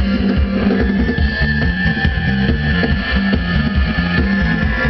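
A live soul-pop band playing loudly: drum kit, a repeating bass line and a long held high note over the mix, heard from amid the audience.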